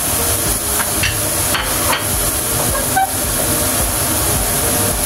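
Minced beef and freshly added diced tomato sizzling in a hot wok over medium heat: a steady hiss with a few scattered pops, over a low steady rumble.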